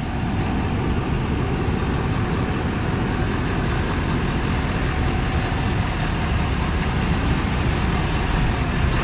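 Ford F-450 Super Duty's 6.7 L Power Stroke diesel running steadily near idle as the truck slowly backs a fifth-wheel trailer.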